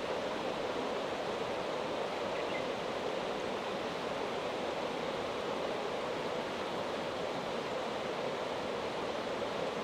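Mountain river flowing, a steady, unbroken rush of water over stones.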